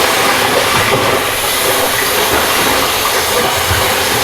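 Movie action soundtrack played loud through a Bose Soundbar 700: a steady hissing wash of noise with low rumbles underneath.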